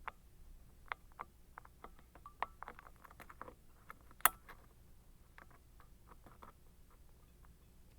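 Lock pick and tension wrench working the pin stack of an Abus 55/50 brass padlock: irregular small metallic clicks and scrapes, with one sharper click about four seconds in.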